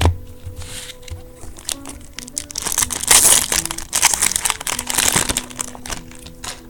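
Crinkling and tearing of a foil trading-card pack wrapper as the pack is torn open, in a string of loud crackly bursts through the middle, after a soft thump at the start.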